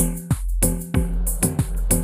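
Background music with a steady electronic beat and bass line.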